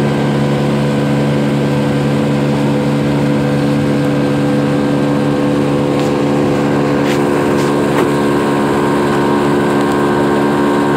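Motorboat engine running steadily under way, an even drone that holds one pitch, with the rush of water from the wake.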